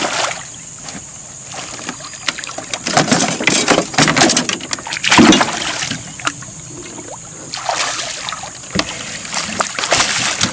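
A hooked toman (giant snakehead) thrashing at the water's surface beside the boat, splashing in irregular bursts as it is played in. A last splash near the end comes as it is scooped into a landing net.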